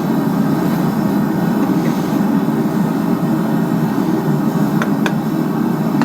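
A forge running with a steady low roar, with a couple of faint ticks about five seconds in.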